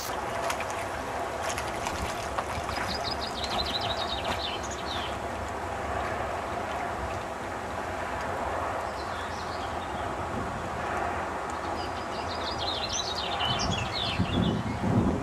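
Steady outdoor wind noise on the microphone, with two bursts of high, rapid chirping trills. Near the end there is louder low buffeting.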